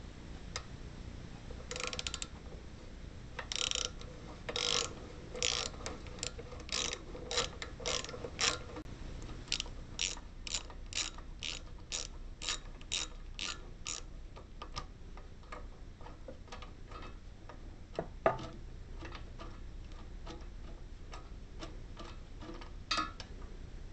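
A 3/8-inch drive ratchet clicking in bursts, about two a second, as it is worked back and forth to back out a bolt through a long extension and a 9/16 socket. The clicking turns fainter about halfway through, and one sharp knock stands out a little after that.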